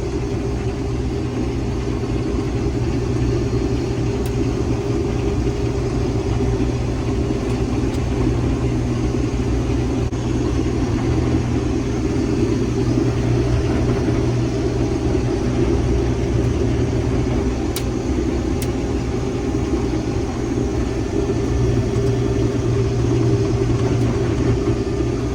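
Combine harvester running steadily under load while cutting soybeans, its engine and threshing machinery giving a constant low hum and drone.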